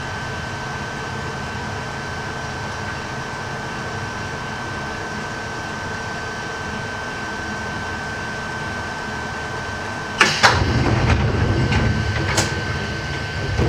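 Ohmi Railway 820 series electric train standing in the station: a steady hum with a constant thin high tone. About ten seconds in comes a sudden loud clunk, followed by a low rattling rumble and another sharp click a couple of seconds later.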